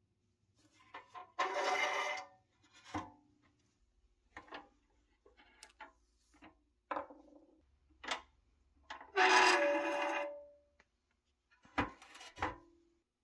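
A rusty pressed-steel toy pickup truck being handled on a wooden workbench: scattered clicks and rubbing, and two longer rasping scrapes, one about a second and a half in and one near ten seconds.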